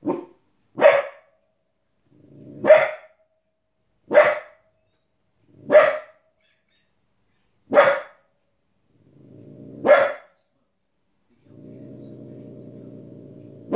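A 15-week-old Border Collie puppy barking at animals on a television: about seven sharp, single barks spaced one to two seconds apart, a couple of them rising out of a low growl. Near the end she holds a steady low growl for about two seconds.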